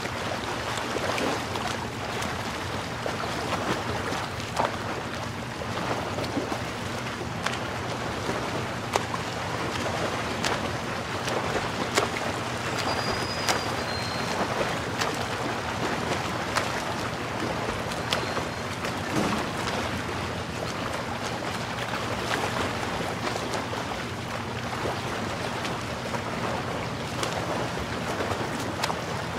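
Motorboat engine running steadily under wind and water rush, with scattered brief knocks.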